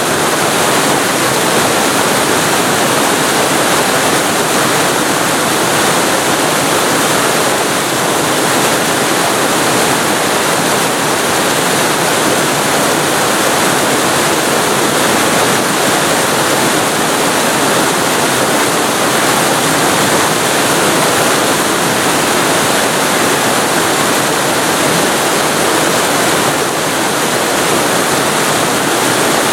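Waterfall recorded very close to the falling water: a loud, steady rush of water.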